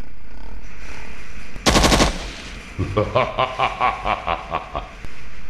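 The ride's steady motorcycle and wind noise cuts out about a second and a half in for a dubbed-in sound effect. A loud half-second burst of machine-gun fire is followed by about two seconds of rapid pitched pulses, roughly five a second, before the ride noise comes back.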